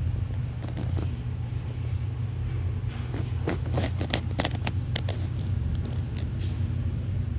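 A steady low hum throughout, with a short run of small clicks and taps between about three and five seconds in.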